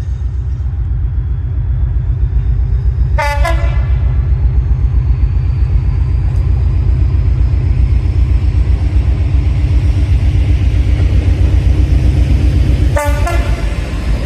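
A train horn gives two brief toots, one about three seconds in and one near the end, over the loud, pulsing low rumble of the train.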